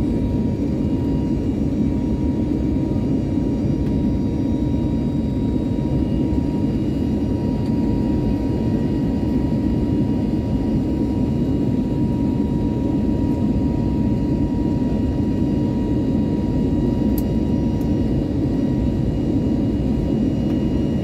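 Airbus A320neo cabin noise heard from a window seat beside the engine in flight: a steady jet-engine rumble with a faint steady whine over it.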